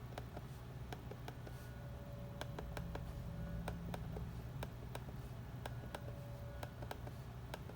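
Mid-2009 MacBook Pro trackpad pressed over and over, its button giving a string of sharp clicks that sound about right after cleaning and refitting. A steady low hum runs underneath.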